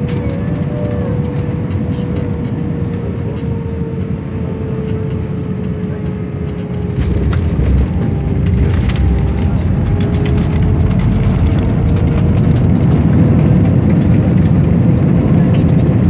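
Cabin noise of an Airbus A320-family airliner landing: a steady engine whine over the rush of air. About seven seconds in the wheels touch down, with a jump in low rumble and some rattles, and the noise grows louder through the rollout on the wet runway.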